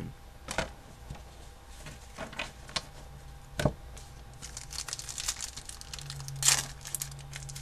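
A hockey card pack's wrapper crinkling and tearing as it is handled and opened: scattered sharp crackles, thickest in the second half.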